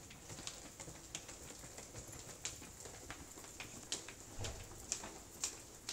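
Footsteps of several people walking on a hard tiled hallway floor: sharp shoe clicks about two a second, louder in the second half.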